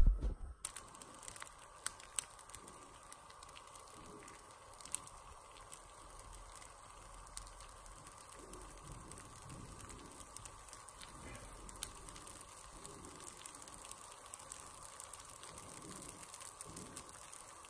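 Baghrir batter (semolina and yeast) cooking in a hot non-stick pan, with faint, scattered crackling and tiny pops as bubbles burst through the surface and leave it full of holes, the sign the batter is cooking as it should. A steady faint hum runs underneath, and a sharp click comes at the very start.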